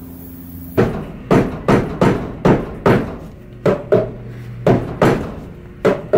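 Hammer blows on the painted wooden table leg and frame: about a dozen sharp knocks, two or three a second, with two short pauses between runs.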